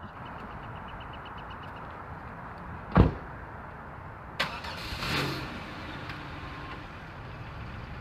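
A car door shuts with one loud thump about three seconds in. About a second and a half later there is a click, then the Chevrolet minivan's engine starts and settles into idle.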